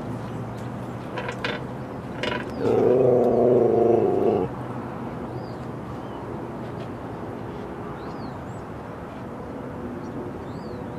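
Siberian husky giving one drawn-out, low vocalization lasting about two seconds, starting a couple of seconds in and stopping abruptly, preceded by a few short clicks. A few faint high chirps come later over a steady outdoor background.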